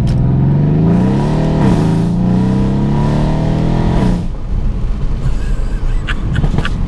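Mercedes-AMG C63 S twin-turbo V8, fitted with downpipes and a tune, heard from inside the cabin under hard acceleration: the revs climb, a quick gearshift dips them a bit under two seconds in, they climb again, then the throttle closes about four seconds in and the engine note falls away.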